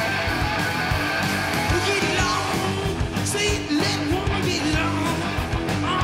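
Rock song with guitar and drums keeping a steady beat; a voice sings over it from about two seconds in.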